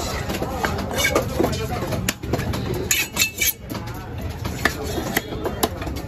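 Cleaver chopping through parrot fish on a wooden block: a few sharp chops about a second in and three more near the end, with people talking in the background.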